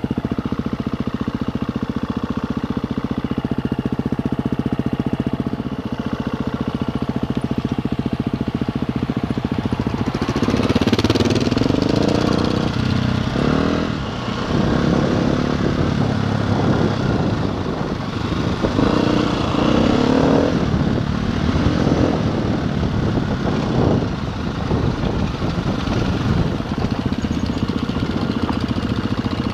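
KTM enduro motorcycle's single-cylinder engine under way. It holds a steady pitch for about the first ten seconds, then the revs rise and fall again and again as the throttle is opened and closed.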